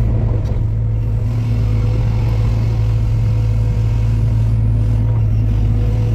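Heavy construction machine's diesel engine running steadily at a constant, low, unchanging pitch.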